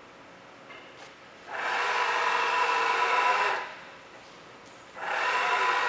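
Air-driven power drawbar on a Bridgeport V2XT milling head running in two bursts, about two seconds and then just over a second, as the tool holder is released and drawn back in. Each burst is a steady hissing rattle that starts and stops sharply.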